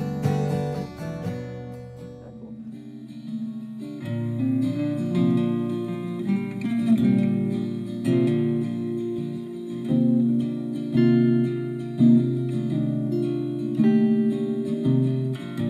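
Instrumental acoustic guitar music. The guitar plays sparsely for the first few seconds, then fuller chords with regular strokes from about four seconds in.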